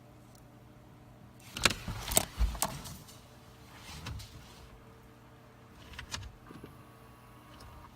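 Sharp clicks and knocks of test leads and probes being handled against the blower motor's plastic connector and housing, bunched in a short burst about two seconds in, with a few lighter knocks later. A steady low electrical hum runs underneath.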